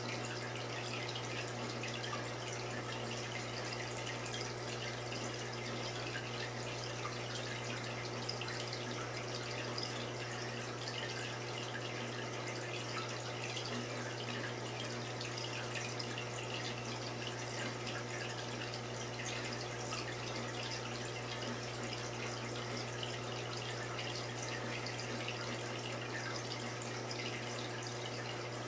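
Reef aquarium's circulating water trickling and dripping steadily over a low, constant hum.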